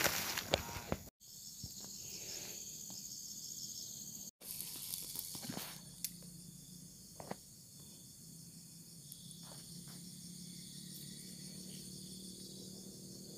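A steady, high insect chorus of chirring crickets. In the first second there is rustling and handling of the phone, and the sound drops out for an instant twice, about a second in and again about four seconds in. A few faint clicks sound later.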